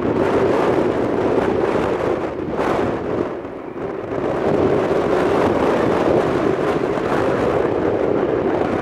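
Turboprop engines of an ATR 72-202 freighter running as it taxis: a loud, steady drone that dips briefly about three and a half seconds in.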